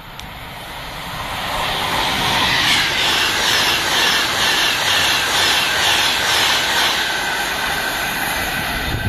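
Virgin Trains high-speed passenger train passing through a station at speed: a rushing noise that builds over the first two seconds, then holds loud with a regular beat about twice a second as the carriages go by, easing a little near the end.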